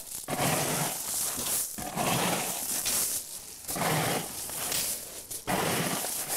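A plastic bucket scraped and scooped through beach shingle, pebbles rattling and crunching into it in repeated scoops about a second apart, to fill it with stones that weigh down a beach shelter.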